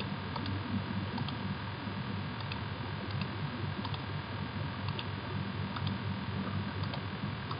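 A handful of faint computer mouse clicks at irregular intervals, over a steady low hum of microphone and room noise.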